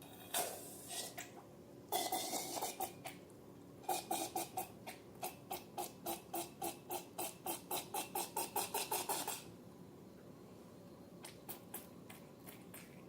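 Slime being squished and poked by hand, making sticky clicks and pops: two short clusters at first, then an even run of about three clicks a second for some five seconds, with a few faint clicks near the end.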